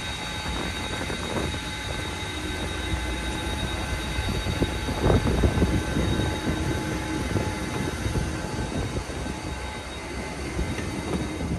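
Airport apron noise beside a parked Airbus A320neo: a steady high whine over a low rumble, with wind on the microphone. A few louder knocks and scuffs come about five seconds in.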